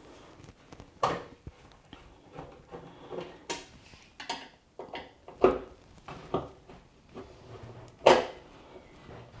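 Metallic clicks and knocks of a screwdriver and hand tools on the washing machine's lower front panel as screws are taken out: about six separate sharp knocks a second or so apart.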